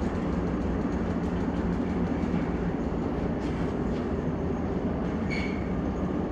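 Steady low mechanical rumble on board a large car ferry, from the ship's machinery and the running escalator. A short high tone sounds about five seconds in.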